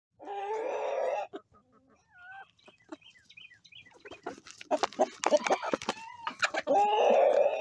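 Chickens calling: two loud drawn-out squawking calls, one just after the start and one near the end, with a few soft clucks between. In the middle there is a quick run of sharp clicks from beaks pecking grain in a feed pan.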